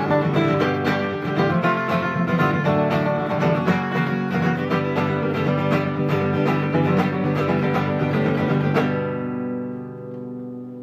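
Acoustic string band playing a picked instrumental passage, ending about nine seconds in on a final chord that rings out and fades.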